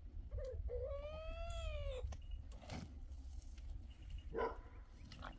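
Young goat bleating: one long call, rising then falling in pitch, starting about half a second in, followed by two shorter sounds.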